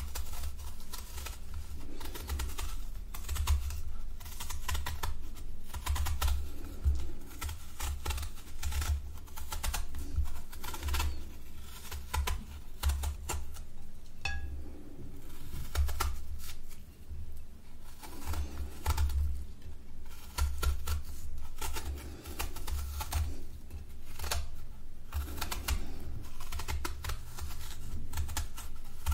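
A kitchen knife peeling the skin off a firm yellow fruit held in the hand: many quick, crisp cutting strokes in close succession, over dull low bumps from handling.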